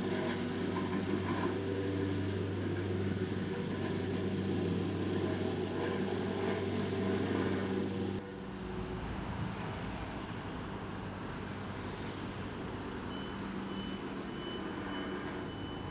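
Road-works machinery engine running with a steady drone, cut off abruptly about eight seconds in and replaced by a quieter, even city traffic noise. A high, steady beeping tone comes in near the end.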